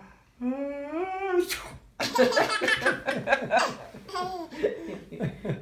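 A pretend sneeze, a drawn-out rising "ah…" ending in a sharp "choo!" about a second and a half in, followed by several seconds of laughter in reply.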